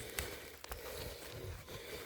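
Footsteps and rustling through brush, with small clicks and snaps of twigs and stems.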